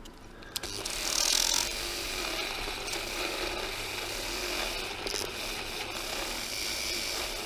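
Handheld rotary tool grinding inside a hole in a metal fork part, porting it: a steady rasping grind that starts about half a second in and is loudest for a moment around a second in.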